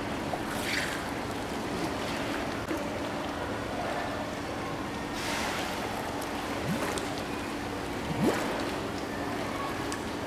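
Water splashing and lapping in a pool as a seal swims and dives, with a few louder splashes, over a steady low hum.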